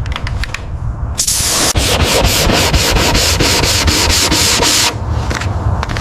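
Abrasive sanding of car bodywork: rasping back-and-forth strokes, about four a second, lighter in the first second and again near the end.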